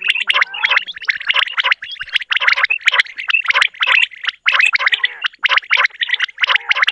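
Common quails calling: a dense, continuous run of short, high chirping notes in quick clusters, several a second, as from a number of birds at once.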